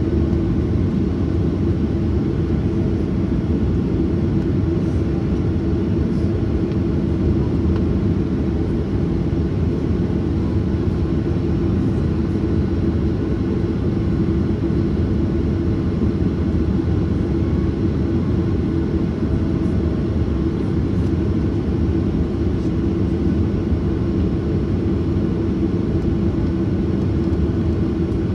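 Boeing 737-800's CFM56-7B jet engines running, heard from inside the passenger cabin as a steady rumble with a constant low hum.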